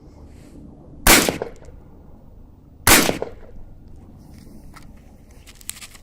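AR-15 rifle firing two single shots, about two seconds apart, each with a short echo. A few faint clicks follow near the end.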